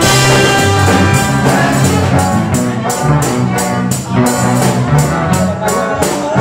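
A live rock-reggae band playing, with keyboard, bass guitar and drum kit over a steady beat. From about two seconds in, a cymbal ticks about four times a second.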